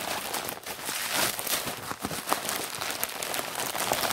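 Bubble wrap and a clear plastic packaging bag crinkling and crackling steadily as they are handled and pulled open by hand.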